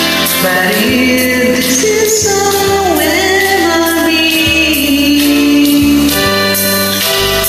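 Karaoke backing track with a woman singing over it.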